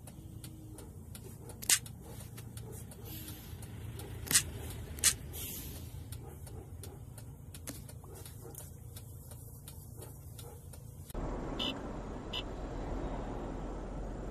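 Car cabin noise picked up by a dashcam: a steady low engine and road hum with faint regular ticking and three sharp clicks in the first half. About 11 seconds in it switches abruptly to a louder, hissier road rumble from another car's dashcam.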